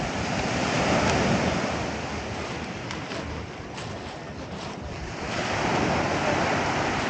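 Sea waves washing onto the beach, the surf swelling about a second in and again near the end.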